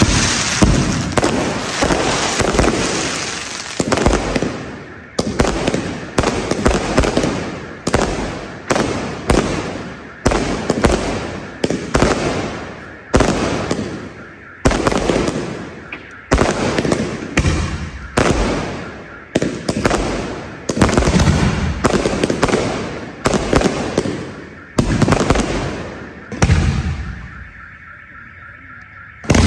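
Fireworks going off one after another, a sharp bang roughly every second, each followed by a fading rumble, with denser crackling in the first few seconds. The bangs let up into a quieter lull shortly before the end.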